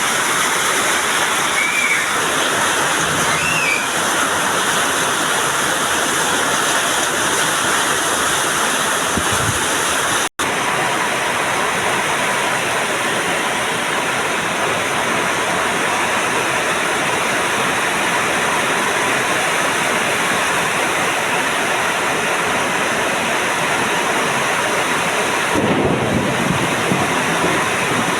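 Heavy rain pouring steadily, with a low rumble of thunder near the end. The sound drops out for an instant about a third of the way through.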